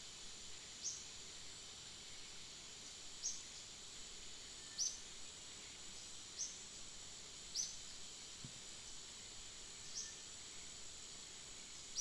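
Steady high-pitched insect drone, with a short, high, falling chirp every one to two seconds.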